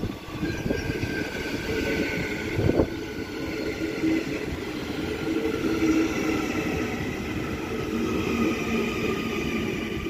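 Six-car Transperth electric multiple unit running into the platform: a steady rumble of wheels on rail with the electric traction motors' whine in several tones, and one sharp knock about three seconds in.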